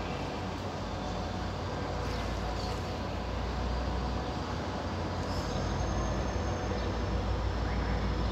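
Distant train approaching: a low rumble with a faint steady engine hum, growing slowly louder over the last few seconds.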